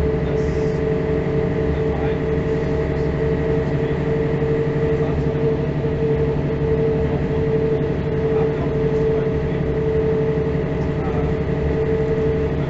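Mercedes-Benz O405 city bus running steadily, heard from inside the passenger cabin: a constant drone of engine and drivetrain with a steady whine over a low rumble.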